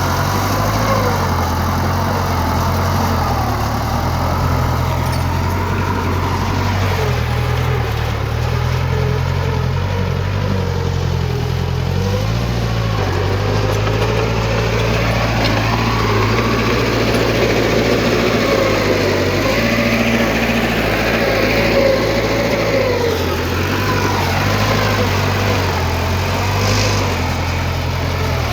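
Diesel engine of heavy earthmoving machinery running steadily under load, with a whine that rises and falls in pitch every few seconds.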